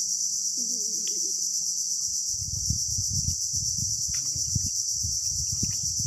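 A steady, high-pitched chorus of insects in the mangrove forest. From about two seconds in, irregular low rumbles and knocks come through underneath.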